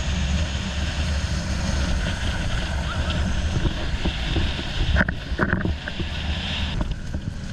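Motorboat ride on the river: a steady low engine rumble with rushing water and wind buffeting the microphone. A few brief sharp sounds come about five seconds in.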